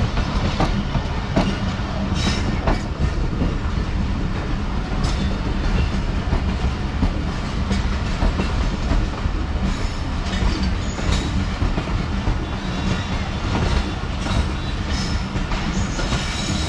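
A Pakistan Railways passenger train's coaches rolling past with a steady rumble. Their wheels clatter over the rail joints in irregular clicks.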